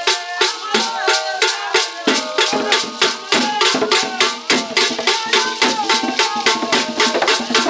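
Traditional drumming ensemble: hand drums and a sharp, evenly repeating percussion beat of about four to five strikes a second, with voices singing over it.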